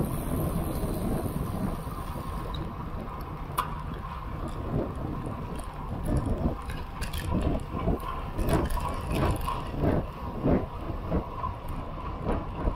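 Wind buffeting the microphone and road bike tyres rolling on asphalt while riding, a steady rushing noise that swells unevenly, with scattered short clicks and knocks.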